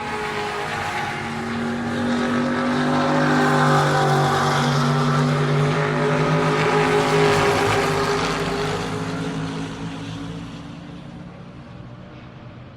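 NASCAR stock car engine running at speed, growing louder as it approaches, passing loudest midway, then fading steadily into the distance.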